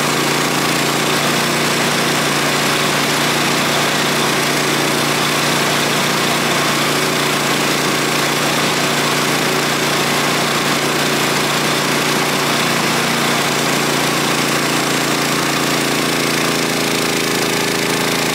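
A small engine running steadily at high throttle, with a loud, even hissing noise over its hum throughout.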